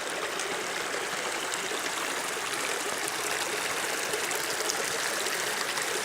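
Rain-swollen woodland creek rushing steadily over rocks.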